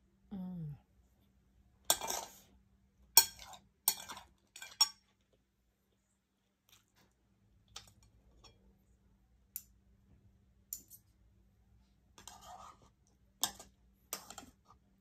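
Eating utensils clinking and scraping against a plate during a meal: about ten sharp clinks, clustered in the first five seconds and again near the end, with a short falling hum of the eater just after the start.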